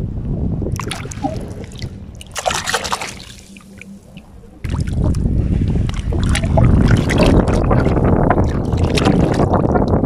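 Wind buffeting the microphone with a low rumble, mixed with light splashes and drips of shallow seawater in the first few seconds. The wind noise dies down briefly, then comes back suddenly and louder about halfway through.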